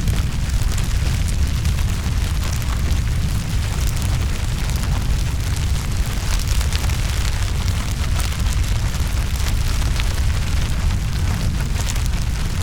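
Bonfire burning: a steady low rumble of flames with frequent sharp crackles and pops.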